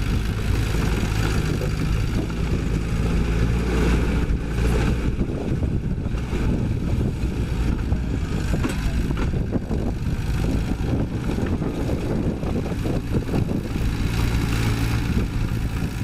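Heavy diesel construction machine engine running steadily. Its low hum is plainest in the first few seconds and again near the end, with rougher noise over it in between.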